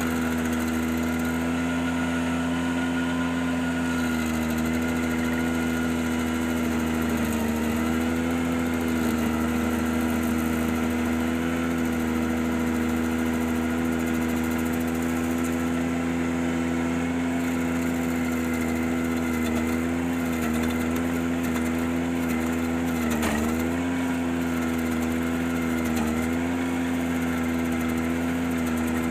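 Ventrac 4520Z compact tractor running its KC180 stump grinder attachment: a steady, loud engine-and-drive drone with one strong held tone. The tone sags briefly in pitch about a quarter of the way in and twice more near the end, as if under momentary load.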